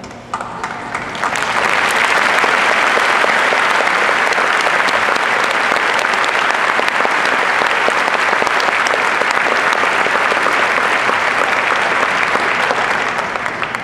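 Large audience applauding: the clapping builds over the first second or two, holds steady, and dies away near the end.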